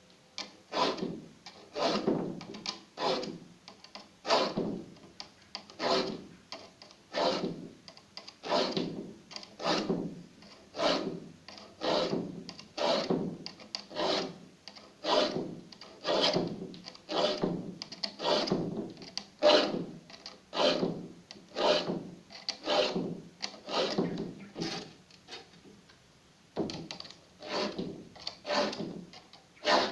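Steel hand file rasping across the teeth of a wood saw in quick, regular strokes, about one and a half a second, to sharpen it. There is a short break near the end before the strokes resume.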